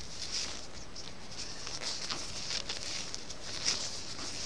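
Circular knitting needles and yarn working purl stitches: soft rustling of the yarn with scattered light clicks of the needle tips.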